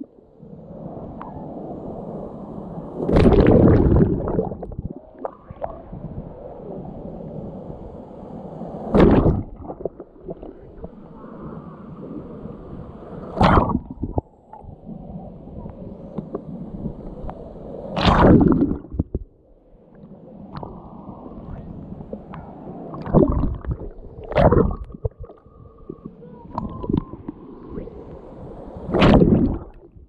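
Small sea waves washing over a camera at the water's surface: a muffled gurgling and sloshing, with a louder splash every four to five seconds as each wave breaks over it.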